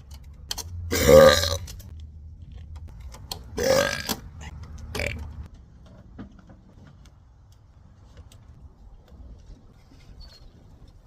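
A woman burping three times after drinking Sprite, the carbonation bringing the gas up. The first burp is the loudest and longest; the third is short and weaker.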